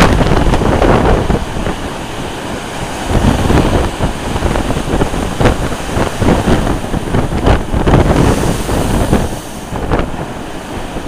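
Strong gale wind buffeting the microphone in irregular gusts, over the rush of storm waves breaking and foaming along a seawall.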